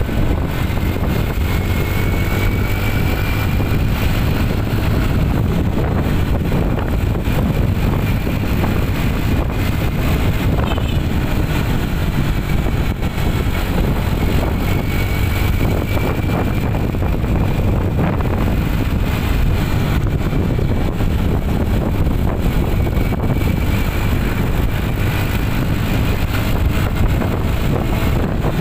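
Steady running noise of a vehicle on the move, heard from on board: engine and road noise, with a faint whine that rises in pitch several times.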